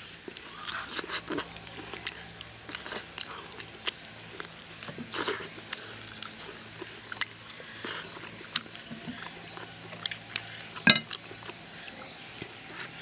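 A person chewing and gnawing sauce-braised duck meat off the bone, in irregular bites and mouth smacks, with one sharper, louder click near the end.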